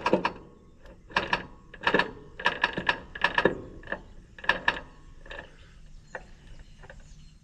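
Steel roller drive chain rattling and clattering in irregular bursts as it is pulled through the drill's sprockets and idlers, the old chain drawing the new one in. The rattles grow fainter and sparser toward the end.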